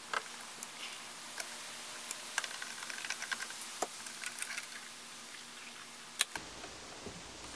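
Light clicks, ticks and scrapes of hands working vacuum tubes out of their sockets in an old tube radio's chassis, with a few sharper clicks among them.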